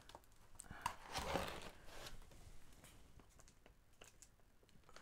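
Knife slitting the packing tape on a cardboard box: a short scratchy rasp about a second in, then faint scrapes and taps against the cardboard.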